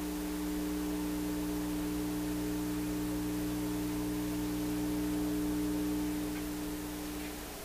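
A vacuum-tube PA amplifier with 6V6 output tubes, heard through its speaker, puts out a big, steady mains hum from its phono input with nothing connected. The hum falls off near the end. The owner suspects a wiring fault, something not connected correctly.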